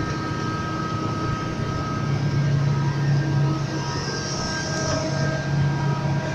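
Diesel engine of a Liebherr crawler excavator idling, a steady low hum with a thin steady whine above it.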